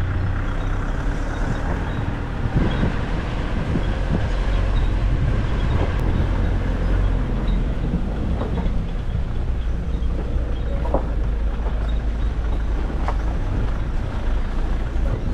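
Nissan Navara D40 4x4 driving off-road: a steady low engine and tyre rumble with a few short knocks and rattles.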